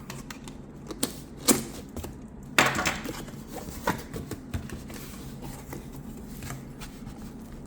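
Laptop packaging being cut open and handled. A few sharp clicks and knocks, and a short scratchy rasp of cutting about two and a half seconds in, then quieter handling.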